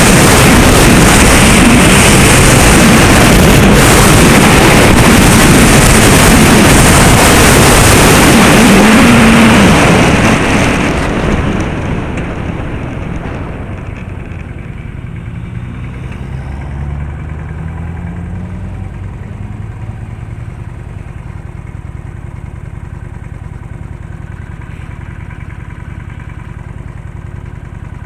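Vehicle on the move: a loud, even rushing noise for about the first ten seconds, then it drops away and an engine can be heard, its note rising as it accelerates.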